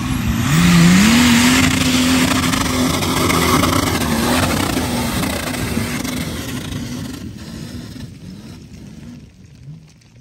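Nissan Patrol's swapped-in BMW M57 straight-six turbodiesel revving hard under full load up a steep rocky climb. The engine pitch rises about half a second in and holds high, over the spray of stones and dirt from the tyres. It fades over the last few seconds as the truck pulls away up the slope.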